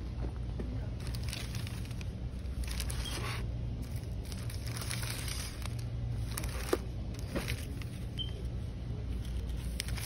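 Plastic crinkling in several short bouts over a steady low background hum, with one sharp tick about two-thirds of the way through.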